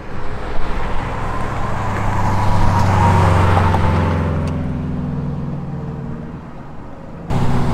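Car engine drone with tyre and wind noise at highway speed, heard from inside a moving car. It swells to a peak about three seconds in, eases off, and changes abruptly near the end.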